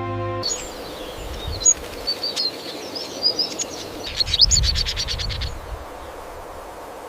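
Birds chirping in short, high calls over a steady hiss of forest ambience, with a quick run of chirps about four seconds in. The chirping stops about five and a half seconds in and only the hiss remains.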